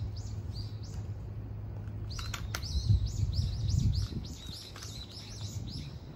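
Small birds chirping: a quick series of short, high chirps, about four a second and thickest in the second half, over a steady low hum.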